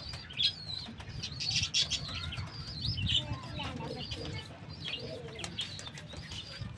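Birds chirping and calling in short scattered bursts, with a pigeon cooing now and then, over a low steady rumble.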